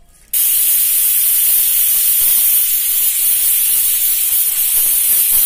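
Pressure cooker whistling: steam jets out under the lifted weight valve as a loud, steady hiss that starts suddenly about a third of a second in. This is the cooker at full pressure, one of the whistles counted to time the dal.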